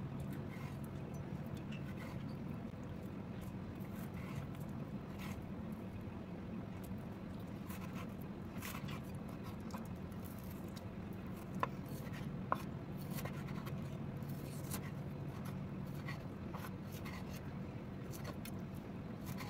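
Chef's knife slicing raw chicken breast into strips on a wooden cutting board: soft scrapes and light taps of the blade on the board, with two sharper knocks about twelve seconds in, over a steady low hum.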